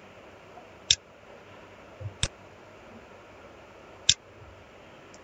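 Computer mouse clicking: three sharp single clicks, about one, two and four seconds in, over quiet room tone.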